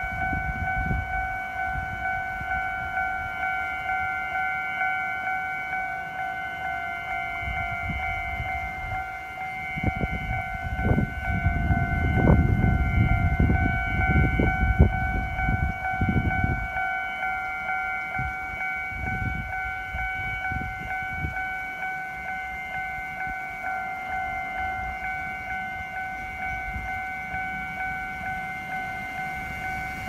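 Japanese railway level-crossing warning bell ringing steadily in an even repeated electronic ding while the crossing lights flash and the barriers are down. A low rumbling noise swells in the middle of the ringing for several seconds and then dies away.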